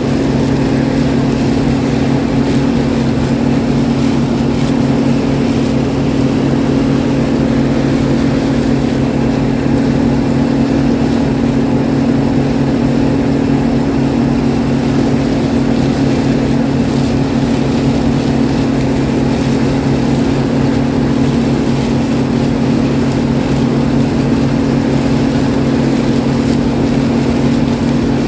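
Combine harvester engine running at a steady speed, a constant loud drone with no change in pitch.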